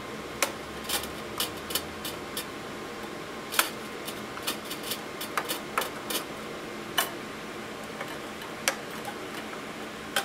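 Irregular small metallic clicks and ticks as the small screws holding a server CPU heatsink are undone by hand, over a faint steady hum.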